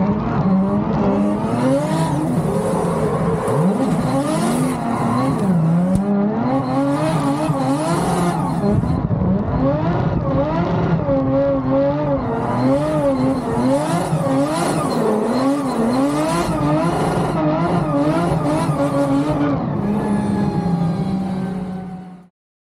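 Drift car engine revving hard from inside the cabin, its pitch swinging up and down quickly as the throttle is worked through a slide, with tyres squealing as they spin up smoke. The sound cuts off abruptly near the end.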